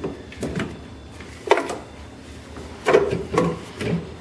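Handling clunks and knocks of engine parts as the intake grid heater is lifted off and set aside: a few separate knocks, the loudest about a second and a half in and again around three seconds in.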